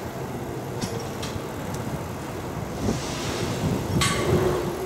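Shinkansen bullet train moving slowly, a steady low rumble, with a sharp click about four seconds in.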